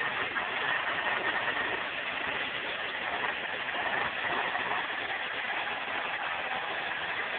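Festool TS 55 track saw running steadily as it is pushed along the guide rail, cutting the new splinter strip to the blade's edge.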